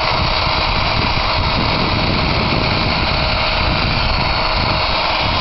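Cordless drill spinning a wire cup brush against an alloy wheel: a steady whir and scratching as the brush cleans the wheel back.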